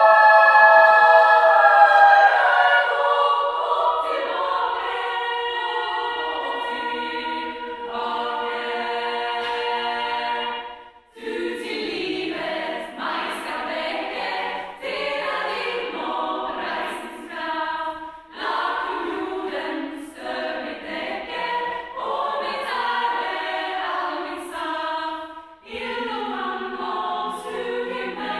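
Women's choir singing a hymn unaccompanied in a large, reverberant church. The opening phrase is the loudest, and the singing breaks briefly three times between phrases.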